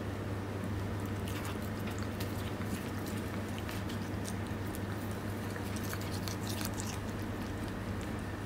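A Norwegian Forest Cat chewing a blade of fresh cat grass: a quick run of crisp crunching clicks from about a second in that dies away near the end, over a steady low hum.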